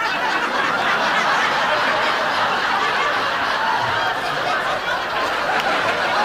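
Studio audience laughter: a large crowd laughing, breaking out suddenly and holding at a steady level.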